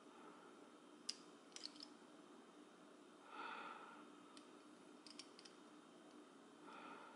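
Light clicks of the cast metal pieces of a Hanayama Cast Coil puzzle knocking together as they are turned and slid by hand: one sharp click about a second in, a few quick clicks soon after, and another small cluster about five seconds in. A short soft breath sounds near the middle and again near the end.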